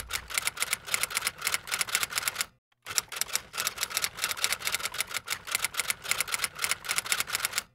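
Rapid, evenly spaced mechanical clicking, about six or seven clicks a second, cutting out for a moment about two and a half seconds in and then carrying on.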